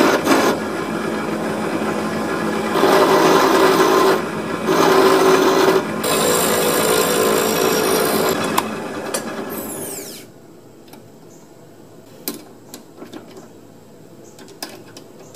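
Drill press running with a copper disc mounted on a bolt in its chuck, a file held against the spinning edge to round it: a steady motor hum under a scraping rasp of file on metal, louder in stretches. About ten seconds in the press is switched off and winds down with a falling whine, followed by light clicks and knocks.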